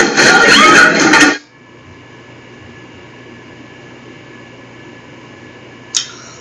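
Loud voices and music from a played comedy clip, cut off suddenly after about a second and a half. Then a steady, fairly quiet room hum, with a brief click just before the end.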